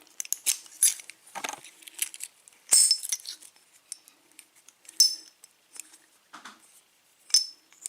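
A key rattling and clicking in an American Lock Series 747 padlock, with a string of small metal clicks and a few louder sharp clinks about 3, 5 and 7.5 seconds in.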